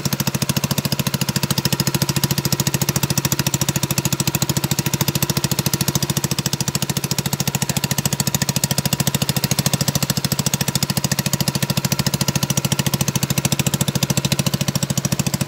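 Small outrigger boat's engine running steadily under way, a fast, even chugging, driving the boat on a newly fitted propeller with two people aboard.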